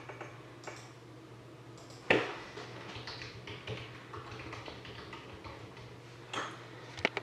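Faint, scattered clicks and taps of a computer keyboard and mouse as team names are typed into a randomizer, with one sharp knock about two seconds in and a couple more near the end, over a steady low hum.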